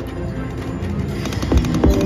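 Olympus Strikes video slot machine playing its game music while the reels spin, with two low thuds near the end as reels stop.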